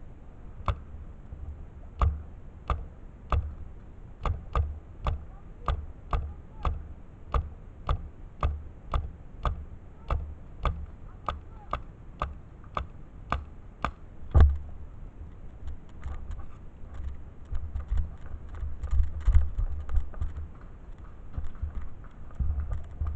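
Paintball marker firing single shots at a steady pace of about two a second, each a sharp crack, with one louder shot after some fourteen seconds. After that come irregular knocks and rustling.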